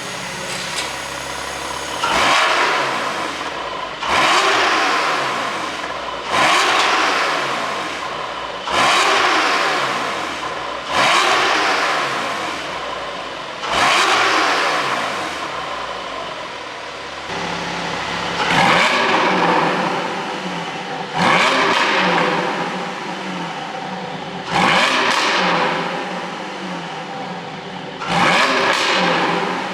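Porsche 718 Boxster GTS 4.0 flat-six blipped from idle about ten times, each rev rising sharply and dropping back to idle, with a pause in the middle. The ECU is tuned for pops and crackles from the exhaust as the revs fall.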